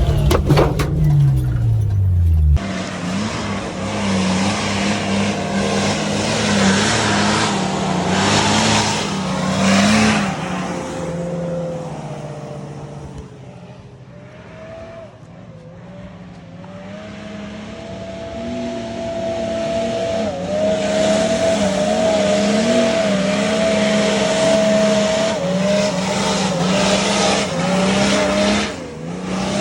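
Off-road 4x4's engine running as it drives, its pitch wavering up and down with the throttle, louder at times and dropping back about halfway through.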